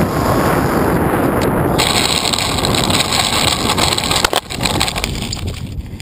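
Heavy wind rumble on the microphone of a GoPro riding a low-flying RC aircraft. About four seconds in come a few sharp knocks as the aircraft hits the dirt, and after that it sits still on the ground with the wind still rumbling.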